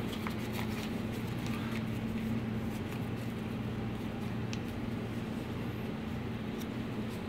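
Steady low machine hum, with a few faint light clicks of handling at the cutting board.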